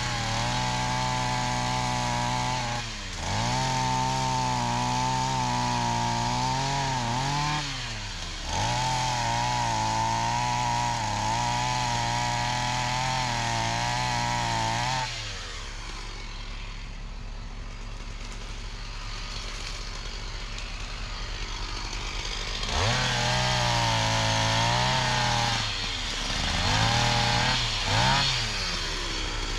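Petrol chainsaw cutting down small birch trees at full throttle, dropping back briefly twice in the first half. About halfway through it falls to idle for several seconds, then it is revved up to full speed again twice near the end.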